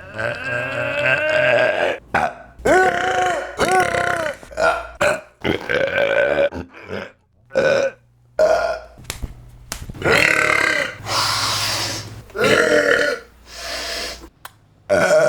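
A person's loud, exaggerated burps, about fifteen in a row with short gaps, some long and drawn out with a bending pitch, others short.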